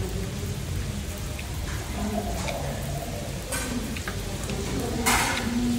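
Meat and seafood sizzling on a Korean barbecue grill pan, a steady crackling hiss, with a few short clicks and taps over it, the loudest near the end.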